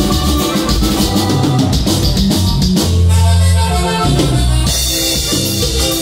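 Loud Latin dance music with drums and a steady beat. About three seconds in, the drums drop out briefly under a held low bass note, then the beat comes back.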